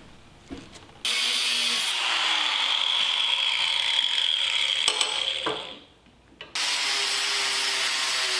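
Angle grinder running with a steady high whine as it cuts into a steel go-kart frame bracket. It starts abruptly about a second in and winds down after about five seconds, then starts again abruptly near the end, cutting and throwing sparks.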